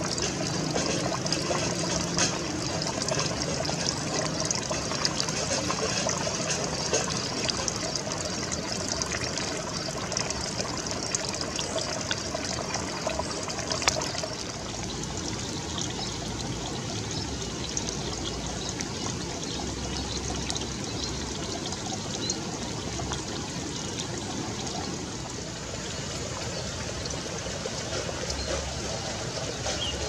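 Steady, even outdoor noise like trickling or running water, with many faint high ticks over it. It turns a little quieter about halfway through.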